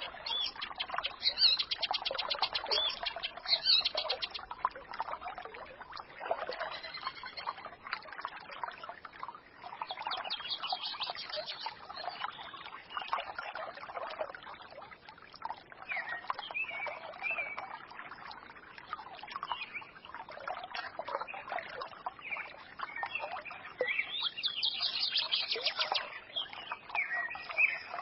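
Small forest stream babbling and trickling, with songbirds chirping and twittering over it in short phrases and quick trills, busiest near the start and again near the end.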